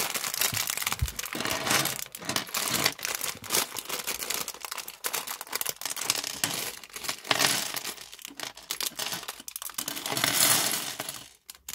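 Crinkling of a thin plastic LEGO parts bag being torn open and handled, with small plastic bricks clicking and clattering as they are tipped out and sorted.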